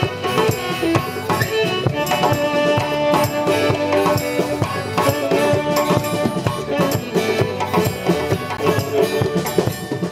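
Live West African band music: hand drums beating a steady rhythm, with acoustic guitar and a shaken rattle.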